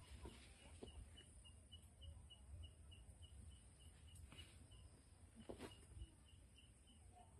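Near silence with faint, even chirping from a small creature: short high notes about four a second, pausing briefly about four seconds in. A few soft knocks sound under it.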